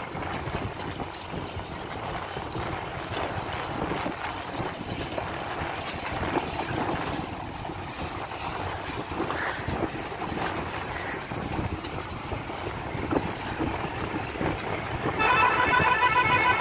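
A vehicle driving over a rough dirt road: engine running with steady rattling and jolting. Near the end a louder, rapidly pulsing tone starts.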